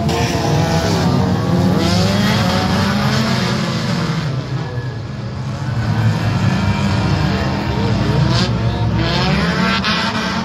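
A pack of banger racing cars running round an oval track, many engines overlapping, their pitches rising and falling as the cars accelerate and lift off. The noise eases briefly about halfway through, then builds again.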